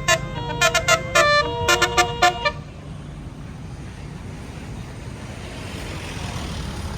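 A tour bus's Basuri telolet horn playing a quick tune of short, rapid musical honks in changing pitches, stopping about two and a half seconds in. A low engine and traffic rumble continues underneath and after it.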